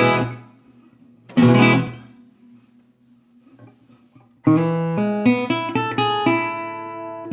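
2009 National Reso-Phonic Style O resonator guitar with a nickel-plated brass body: two strummed chords about a second and a half apart, then after a pause a quick run of picked notes that settles into a ringing chord.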